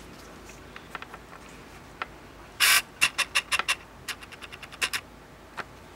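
A camera's autofocus motor chirping and clicking in an irregular run as it hunts for focus on a close-up. One louder burst comes a little after halfway, then a quick chatter of small clicks.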